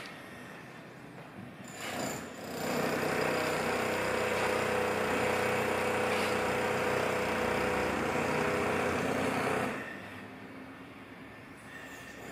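A motor-driven machine running steadily with a hum, starting about two seconds in and cutting off near the end.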